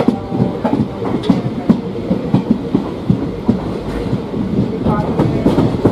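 Passenger train's wheels clattering over the rail joints as the coaches roll along, a quick uneven run of knocks over a low rumble.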